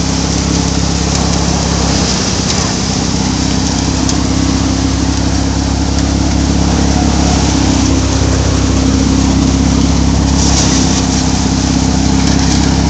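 Tractor-mounted multicrop thresher running at work: the tractor engine's steady drone under a broad hiss from the threshing drum and the straw and grain passing through. The low drone dips briefly about two seconds in, and the hiss turns brighter about ten seconds in.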